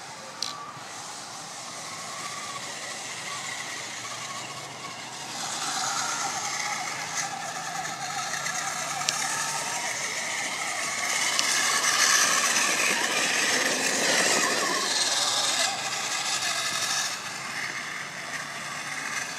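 Electric motors and gearboxes of small RC crawler trucks whining as they drive over a dirt track, with tyres crunching on soil; louder as one truck passes close by partway through, then fading.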